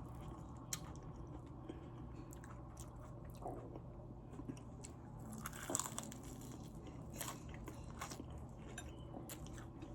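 A person biting and chewing food, with scattered soft crunches and mouth clicks and a louder cluster of crunchy bites a little before six seconds in.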